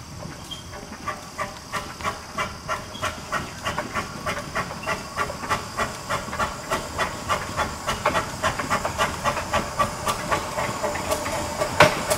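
Steam locomotive No. 242 working a train, its exhaust chuffing evenly about three times a second and growing louder as it approaches.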